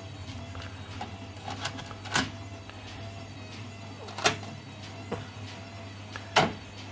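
An Akai CS-F9 cassette deck being loaded and started: the cassette clicked into the door and the door pushed shut, then a transport button pressed. This gives three loud mechanical clunks about two seconds apart among a few smaller clicks, over a steady low hum.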